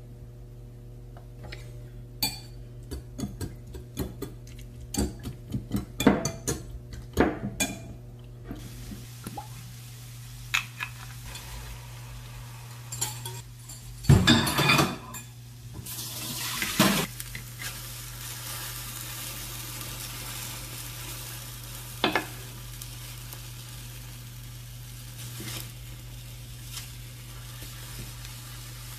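Tuna and eggs being stirred in a bowl, the utensil clinking rapidly against it, then the egg mixture poured into a hot square egg-roll pan about halfway through and sizzling steadily. A single spatula click comes later, over a low steady hum.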